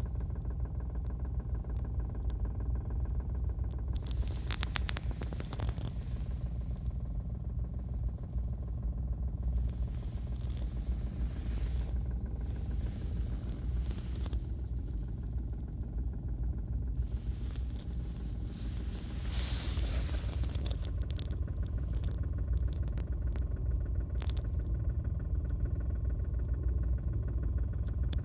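Suzuki Every DA17V kei van's engine running, heard from inside the cabin as a steady low rumble carrying an abnormal noise. The owner links the noise to an early-stage engine fault at the crankshaft.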